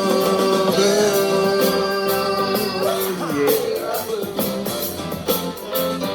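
Rock song with singing: a sung note held for about three seconds, then the band carries on with guitar and drums.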